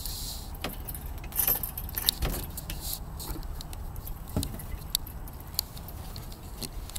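Handling noise from a handheld camera: scattered light clicks and taps over a steady low rumble, with a few louder knocks, the loudest about two seconds in.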